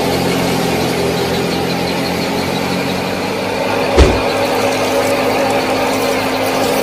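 Small motor of a miniature threshing machine running steadily with a whirring hum, and one sharp knock about four seconds in.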